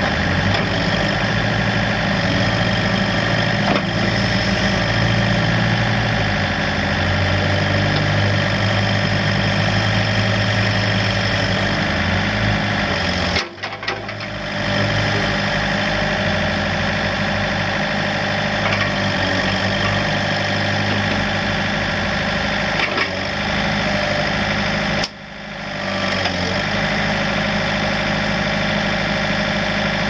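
John Deere 110 backhoe's 2.2-litre TNV88 four-cylinder diesel engine running steadily. The sound drops out briefly twice, about halfway through and again a little before the end.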